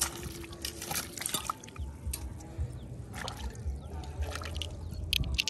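Shallow seawater splashing and dripping as a hand works in a tide pool among the rocks, with scattered small clicks and knocks, the loudest about a second in and near the end.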